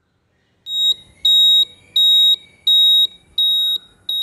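Quiz countdown timer sound effect: a regular series of high electronic beeps, each about half a second long, starting just under a second in and repeating a little less than once a second.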